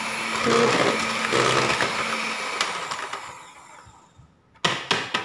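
Electric hand mixer beating egg yolks and sugar in a plastic bowl, its motor whirring steadily, then fading out about three seconds in. A brief clatter of sharp knocks near the end.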